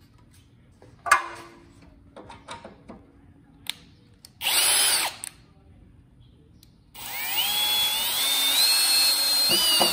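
Kobalt 24V cordless drill working into a wooden board: a short half-second burst, then a longer run of about three seconds whose whine climbs in pitch as the motor speeds up. A sharp knock comes about a second in.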